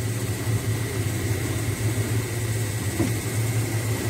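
Small motorboat's engine running steadily under way: a low, even hum with a steady hiss of water and air over it.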